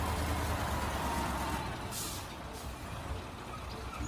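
Heavy diesel engine of a concrete mixer truck running with a steady low rumble, with a short hiss about two seconds in.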